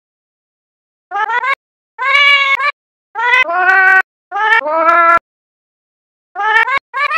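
Cat meows edited and pitch-shifted into a sung melody. There are about six meowed notes at different pitches, each cut off cleanly with dead silence between them, and the lowest notes fall in the middle of the phrase.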